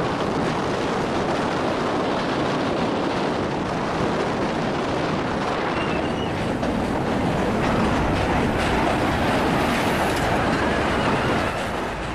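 Passenger train crossing a steel truss rail bridge: a steady, loud noise of wheels running on the rails.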